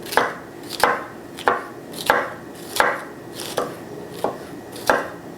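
Kitchen knife chopping on a cutting board in a steady rhythm, about eight strokes, one every two-thirds of a second.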